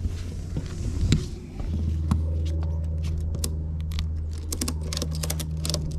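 Ratchet strap buckle being cranked tight, a run of quick sharp clicks from about two seconds in, over a steady low hum.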